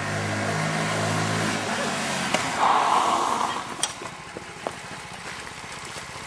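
A motor vehicle on the road: a steady engine hum with road noise for the first couple of seconds, a short rushing sound about three seconds in, then quieter rolling noise with a few light clicks.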